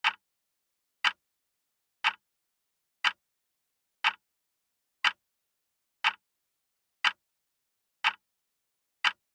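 Countdown timer sound effect: ten sharp clock-like ticks, one a second, with silence between them.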